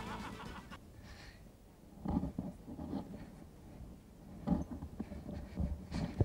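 The closing notes of stage music fade out. A hushed hall follows, with scattered soft thumps and knocks from a performer moving on the stage and handling props, and a sharper clack near the end.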